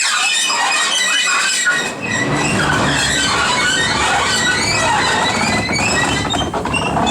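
Loud steel wheel flange squeal from a Class 37 diesel locomotive moving slowly through the depot's pointwork, a shifting chorus of high screeching tones. About two seconds in, a low rumble from the locomotive joins it.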